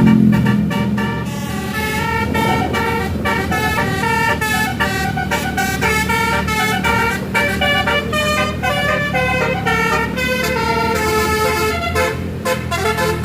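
Bus's multi-trumpet 'basuri' telolet air horn playing a fast melody, the notes changing several times a second, over a steady low rumble.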